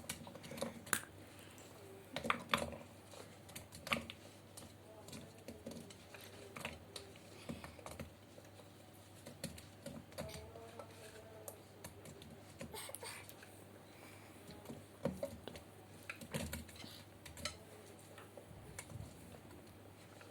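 Light, irregular clicks and knocks of cut potato and pepper pieces being laid one by one into a cooking pot.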